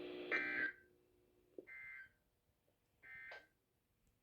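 Emergency Alert System end-of-message signal: three short, two-tone warbling data bursts (the SAME digital 'NNNN' code), each about half a second long and about a second and a half apart, marking the close of a relayed severe thunderstorm warning. A steady low hum from the broadcast stops within the first second.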